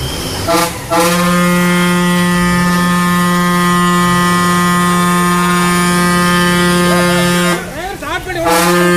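Vehicle horn sounding one long, steady blast of about six and a half seconds, after a short toot about half a second in; it breaks off near the end.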